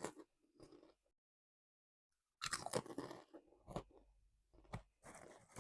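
Crunchy snack chips being bitten and chewed: a short spell of crunching at the start, then a longer one from about two and a half seconds in.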